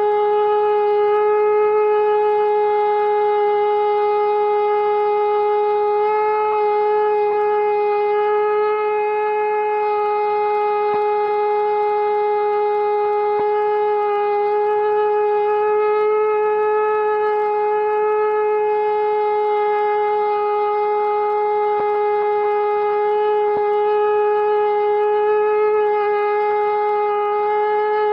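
Conch shell (shankh) blown in one long, unbroken note, holding a steady pitch throughout.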